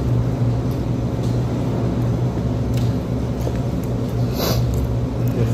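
A steady low mechanical hum, with faint ticks and a short hiss about four and a half seconds in.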